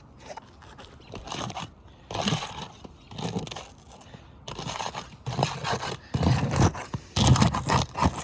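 Irregular scraping and crunching of asphalt roof shingles being worked and pried loose, in uneven strokes that get louder toward the end.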